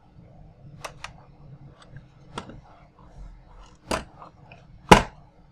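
Handling of a small diecast metal toy vehicle: scattered light clicks and taps as it is turned and its switch is worked, with two louder knocks about four and five seconds in.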